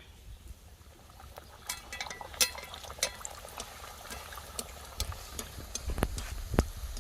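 Hot oil crackling and bubbling as luchi deep-fry, with many irregular sharp pops.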